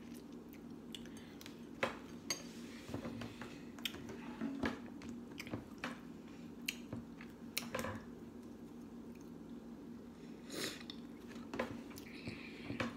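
Close-up eating sounds: quiet chewing of oatmeal and banana, with a metal spoon clinking now and then against a glass bowl in scattered sharp clicks.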